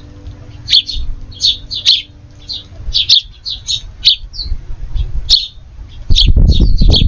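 Small songbirds chirping in quick, short, high notes, several a second. About six seconds in, a loud low rumble joins them.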